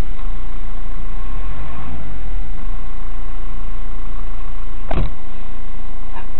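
Car noise picked up by a dash cam microphone: a steady, very loud low rumble of engine and road. A single sharp click comes about five seconds in.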